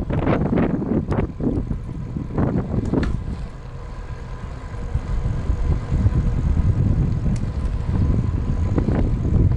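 Wind buffeting the camera's microphone: an irregular low rumble with a few stronger gusts, easing off for a moment around the middle.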